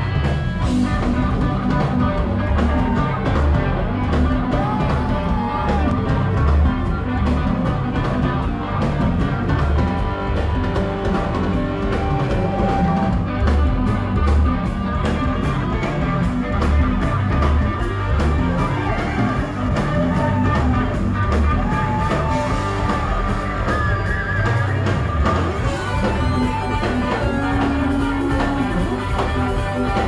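Live rock band playing, led by electric guitar with notes that bend up and down over drums, recorded from the audience on a phone.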